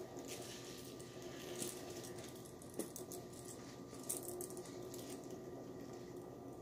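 Faint rustling and scattered small clicks of a rubber full-face gas mask and its straps being handled and pulled on, with a couple of sharper clicks in the middle.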